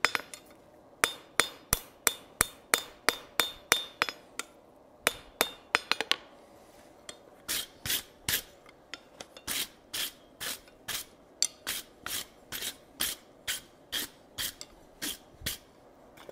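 Hand hammer striking a red-hot steel tong blank on an anvil, about three blows a second with a brief pause, while the twist is hammered out of it. From about seven seconds in, a wire brush scrubs the hot steel in rhythmic strokes, about two a second, throwing sparks.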